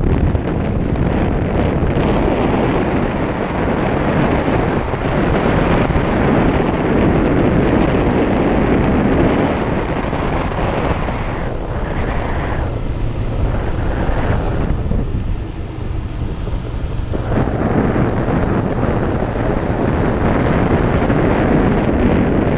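Motorcycle engine running while riding along a dirt track, mixed with wind buffeting on the helmet camera's microphone. The sound thins out for several seconds past the middle, then builds up again.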